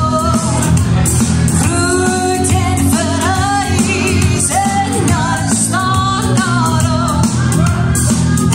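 A woman singing into a microphone through a loudspeaker over amplified backing music, with held notes that waver in vibrato.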